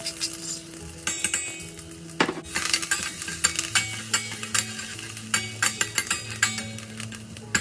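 Mustard seeds, curry leaves and crushed garlic, green chilli and cumin sizzling in hot coconut oil, crackling with many sharp clicks, while a metal spoon stirs and scrapes against a stainless steel pot.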